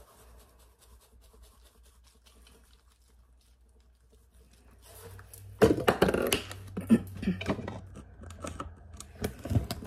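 Spice shakers handled over a salad: faint light ticks at first, then from about halfway a louder spell of rattling, knocks and clicks as seasoning is shaken out and containers are picked up and set down.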